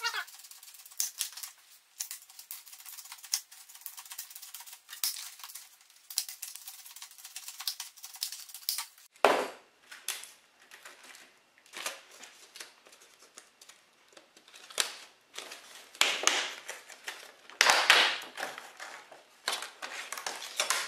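Stiff plastic clamshell packaging being cut open with a handheld package-opening cutter: a run of quick snipping clicks, then, from about halfway, louder crackling of the stiff plastic as it is worked and pulled apart.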